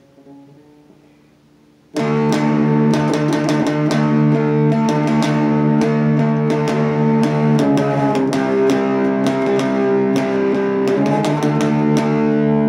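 Electric guitar played through an MXR Prime Distortion pedal with distortion, tone and output at about halfway. Picked and strummed distorted chords start suddenly about two seconds in and ring on with two chord changes.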